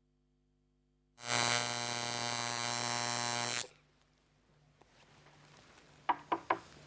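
Electric tattoo machine buzzing steadily for about two and a half seconds, then switched off abruptly. Near the end, three quick clacks as the machine is set down on the table.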